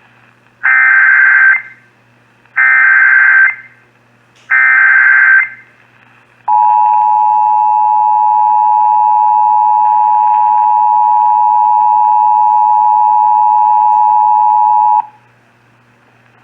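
Emergency Alert System activation: three short bursts of SAME header data tones, about a second each, encoding the alert, here a flash flood warning. They are followed by the two-tone attention signal, a steady dual tone held for about eight and a half seconds.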